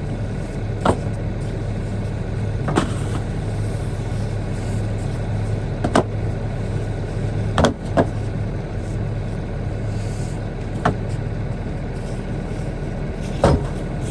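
Old tires being thrown off a silage pile, landing with irregular thuds every second or few, over a vehicle engine running steadily.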